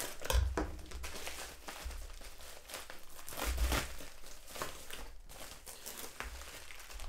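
White plastic mailer bag crinkling and tearing as it is slit with a knife and pulled open by hand, an irregular run of crackles with a few low thumps.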